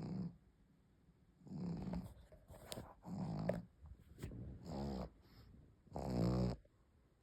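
A pug snoring: a run of about five rattly snores roughly a second apart, the one near the end the loudest.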